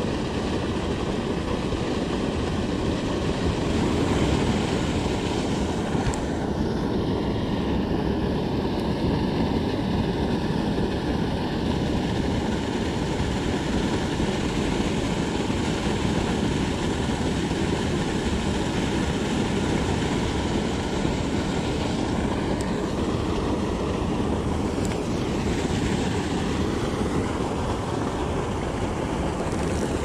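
Water pouring from a spillway pipe into a creek: a steady, unbroken rushing.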